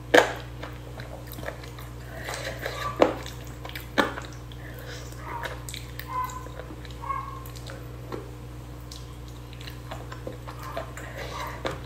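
Close-miked eating sounds: a person biting and chewing spicy chicken and rice eaten by hand, with wet mouth clicks and smacks. A few sharper clicks stand out at the very start and about three and four seconds in.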